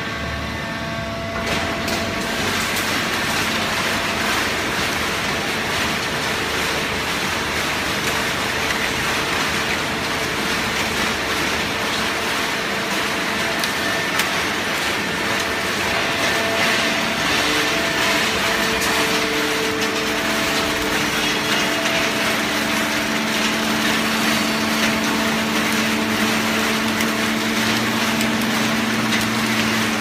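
Fully automatic horizontal hydraulic baler running: a steady hum from its motor and hydraulic pump over a continuous mechanical noise, the hum growing stronger about two-thirds of the way through.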